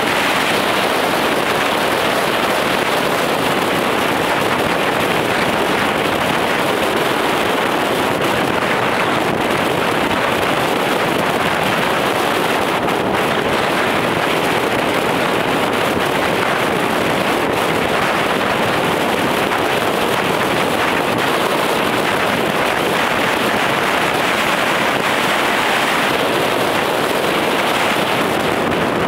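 Steady wind and road noise from a car driving along, an even rush with no changes and no distinct engine note.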